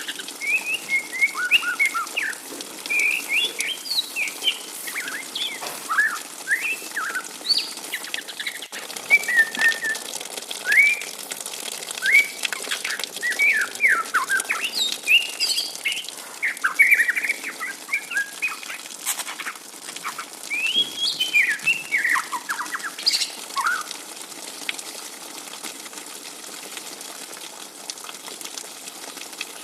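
Juvenile white-rumped shama (murai batu trotol) chattering: a quick string of short twittering chirps that rise and fall in pitch, the young bird's 'ngriwik' calls. The calling stops a few seconds before the end.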